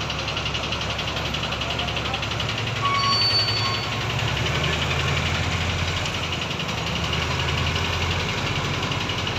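Heavy engine of a crane lifting a concrete girder, running steadily with a low rumble that grows a little stronger about four and a half seconds in. A brief high tone sounds about three seconds in.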